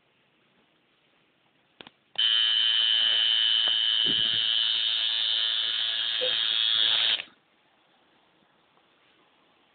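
Tattoo machine buzzing steadily for about five seconds, starting just after a short click and cutting off suddenly.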